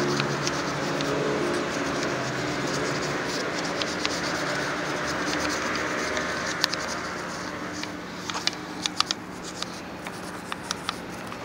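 A steady rushing noise fades away over the first half. From about eight seconds in come scattered sharp clicks and scratches: a small brush dabbing soapy foam onto a scooter wheel's rim and tyre bead, an air-tightness check on a freshly mounted tyre.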